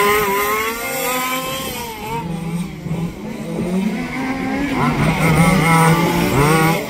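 Small two-stroke petrol engines of 1/5th scale radio-controlled racing trucks, several at once, revving up and down as they brake into and power out of the corners, the pitch climbing sharply about five seconds in and again near the end.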